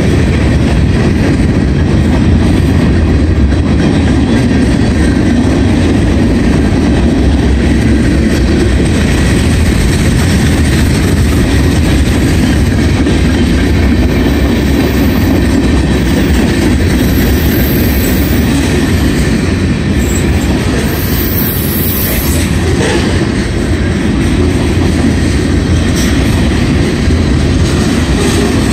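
Freight cars of a CSX mixed manifest train (hoppers, a tank car, covered hoppers) rolling past close by through a grade crossing. The sound is a loud, steady rumble of wheels on rail that does not let up.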